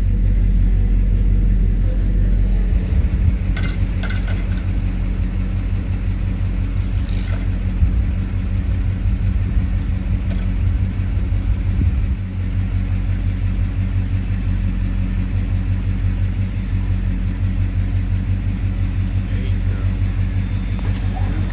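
A 1967 Pontiac GTO's V8 engine rumbling steadily at low speed in stop-and-go traffic, heard from inside the car with the windows down. Its low note shifts about three seconds in and again about twelve seconds in.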